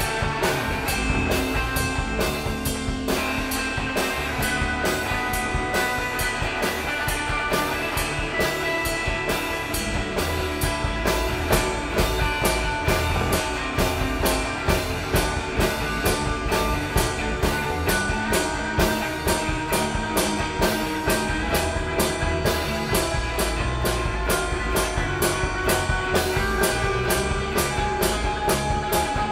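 Improvised instrumental band music with a steady beat under held melodic notes.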